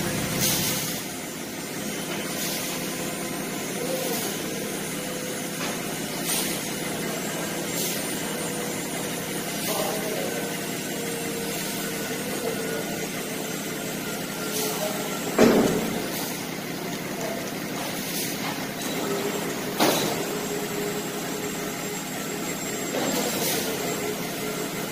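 Steady drone of the hydraulic drive running as a truck-mounted folding loading ramp unfolds under hydraulic cylinder power, with occasional metal clunks from the ramp sections; the loudest clunk comes about fifteen seconds in, another about twenty seconds in.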